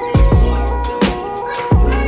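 Background music: a hip-hop style beat with a booming bass kick that drops in pitch, roughly one every three-quarters of a second, over sustained synth notes.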